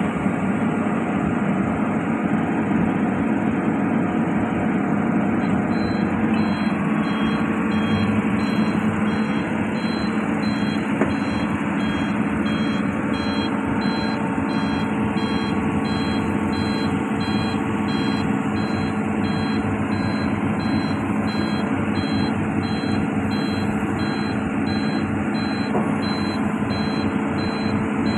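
Hitachi amphibious excavator's diesel engine running steadily close by. From about five seconds in, a high-pitched backup alarm beeps over it at an even pace.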